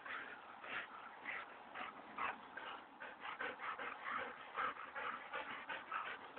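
A standard poodle and a golden retriever tussling: a rapid, irregular run of short dog sounds and panting, several a second.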